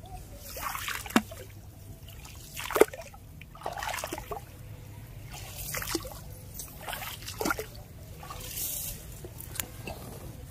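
Shallow rice-field water splashing and sloshing in a series of irregular bursts as a fishing net is moved through it, with two sharper splashes about one and three seconds in.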